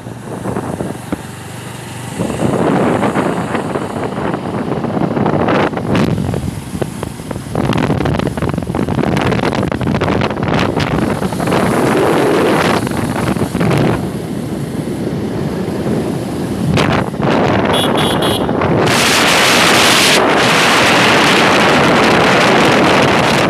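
Wind buffeting the microphone on a moving motorcycle, over the bike's running and road noise. The gusting rises and fluctuates, getting louder and harsher in the last few seconds.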